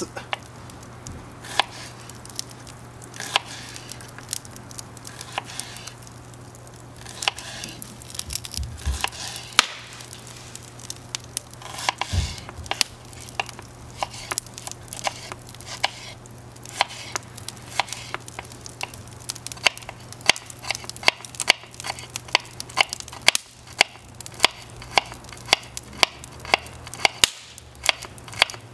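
Knife chopping an onion on a wooden cutting board: scattered single cuts at first, then steady, even chopping of about two strokes a second through the second half. A campfire crackles alongside.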